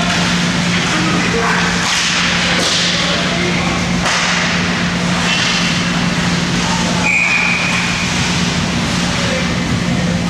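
Ice hockey game sounds: skates scraping and carving on the ice with sticks and puck knocking, over a steady low hum. A couple of sharp knocks come about two and four seconds in, and a brief high tone about seven seconds in.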